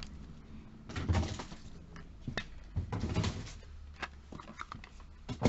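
Small cosmetic boxes and bottles being handled and set down among other products: irregular light knocks, clicks and rustling.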